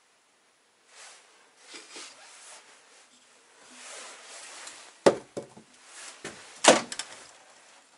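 Faint handling noise, then sharp knocks of objects being handled: a couple about five seconds in and a louder one about a second and a half later.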